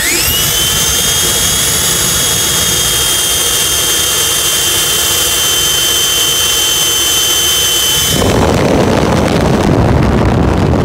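Twin electric ducted fans of a Freewing F-22 Raptor model jet spooling up to throttle: a quick rising whine that settles into a steady high whine. About eight seconds in, the whine gives way to a louder rush of air from the fan exhaust.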